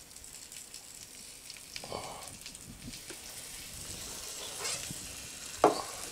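Chicken sizzling quietly in a hot non-stick frying pan as honey mustard sauce is spooned and whisked over it, with small metal clinks and scrapes from the spoon and whisk. One sharp metal knock against the pan comes near the end.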